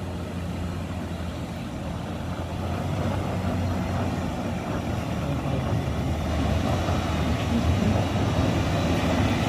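Diesel engine of a UD Trucks tanker truck pulling up a steep, rough grade, a steady low running note that grows louder as the truck approaches.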